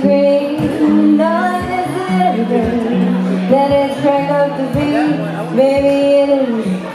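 A woman singing a slow melody with long held notes, accompanying herself on a steadily strummed acoustic guitar.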